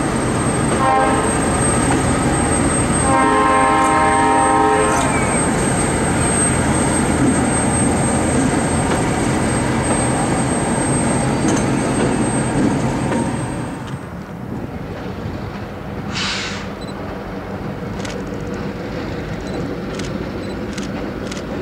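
Horns of a Lancaster & Chester GP38-2 diesel locomotive, one short blast and then a longer one, over the loud rumble of the train rolling past at close range. After about 14 s this gives way to a quieter, steadier rumble as the locomotive crosses a bridge farther off.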